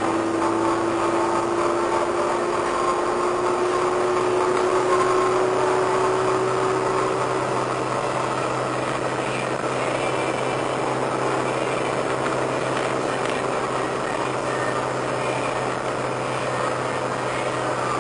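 Engine and road noise inside the cabin of a Nissan 240SX at cruising speed. A steady hum runs under an engine note that rises slowly in pitch over the first several seconds, then merges into the steady drone.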